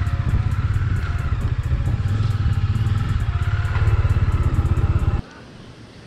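Bajaj Dominar 400's single-cylinder engine running on the move, a steady fast pulsing beat. It cuts off suddenly about five seconds in.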